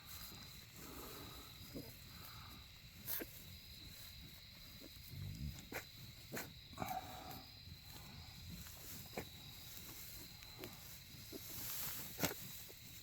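A Berkshire sow and her newborn piglets during farrowing: faint low grunts from the sow and short, thin squeaks from the piglets every few seconds, with scattered small rustling clicks and a faint steady high tone underneath.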